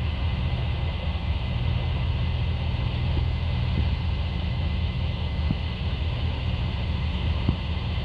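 Case IH 9240 combine running steadily under load while shelling corn: a low, even diesel drone with a steady higher hiss of the machinery over it.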